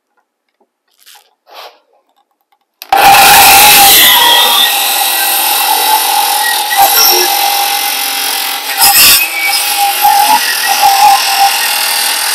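Handheld power saw cutting notches into a pine 2x4 frame: it starts abruptly about three seconds in and then runs loud and steady with a constant whine.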